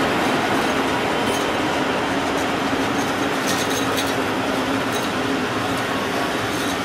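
A train of MÁV-START passenger coaches rolling past, making a steady rumble of wheels on rail with a low hum. A few brief high metallic clinks and squeaks come through now and then.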